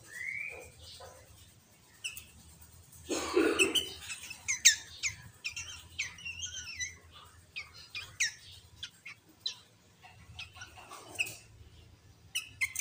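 Sooty-headed bulbul (kutilang) calling: a single rising whistle, then a rapid run of short, sharp whistled notes that thin out toward the end. A brief rustling burst about three seconds in is the loudest sound.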